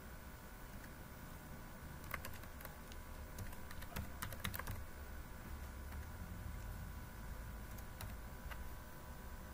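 Computer keyboard being typed on: quick flurries of keystrokes about two and four seconds in, then a few single keys near the end. A faint steady hum runs underneath.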